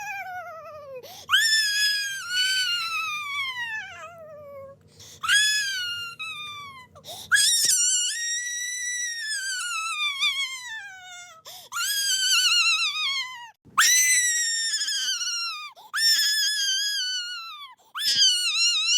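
A very high-pitched cartoon crying voice: a string of about seven wailing sobs, each starting high and sliding down in pitch with a wavering quiver. A faint low hum sits under the first few wails and stops partway through.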